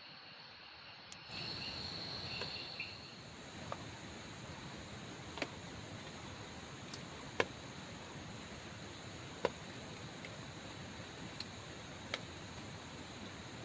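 Forest night ambience: insects keep up a faint, steady high drone over a low hiss, broken by sharp single ticks every couple of seconds.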